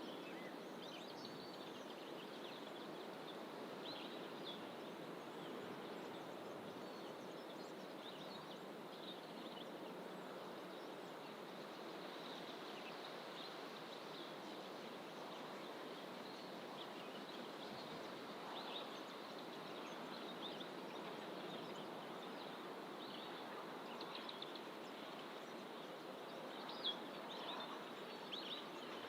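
Faint, scattered short chirps of wild birds in coastal fynbos bush over a steady, soft rushing background, with one brief sharp click near the end.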